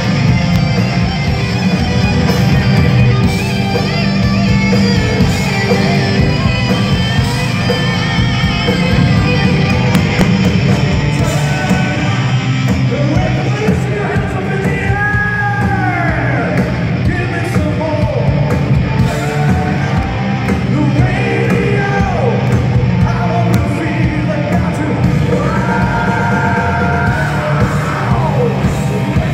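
Live hard rock band playing loud, with electric guitars, bass and drums. Vocals come through with long gliding held notes about halfway through and again near the end.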